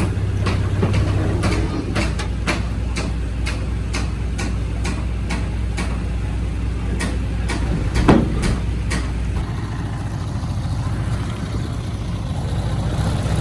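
Heavy diesel engine of earthmoving machinery running steadily. Through the first nine seconds or so there is a series of clicks, about three a second, and a louder knock comes about eight seconds in.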